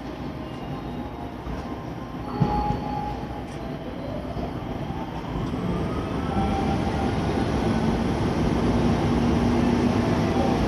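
EF65 DC electric locomotive running light and pulling away from a standstill: a sharp knock about two and a half seconds in, then a rising whine from the traction motors as it picks up speed, growing louder through the rest.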